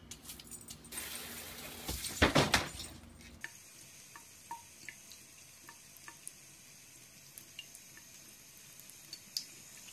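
A short burst of loud noise about two seconds in, then a thin stream of tap water running into a bathroom sink, with small drips and plinks.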